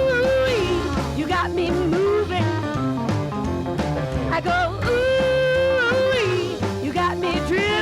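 Rhythm-and-blues rock 'n' roll song with singing and guitar over a full band, with long held notes near the start and again about five seconds in.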